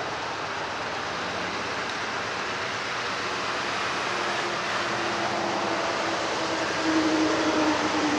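Diesel locomotives led by a GE Dash 9-44CW approaching at the head of an intermodal freight train, their engine noise growing steadily louder. A steady droning tone strengthens over the last few seconds.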